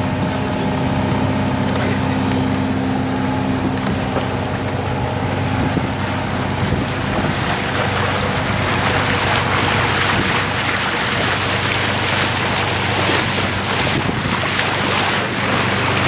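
A sailing yacht motoring with its sails furled: the auxiliary diesel engine runs steadily. From about seven seconds in, a hiss of wind on the microphone and water rushing past the hull grows louder.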